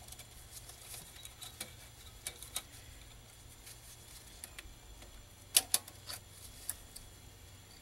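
Scattered small metallic clicks and clinks from hand tools and parts being worked on a Ford Cruise-O-Matic automatic transmission during teardown, at the pressure regulator. Two sharper clinks come close together about five and a half seconds in.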